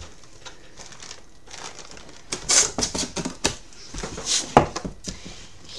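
Cardboard meal-kit box being opened and rummaged through: soft scraping of the cardboard flaps, then louder rustling and crinkling of paper and packaging. Several sharp taps and knocks come through the rustling, the loudest about three-quarters of the way in.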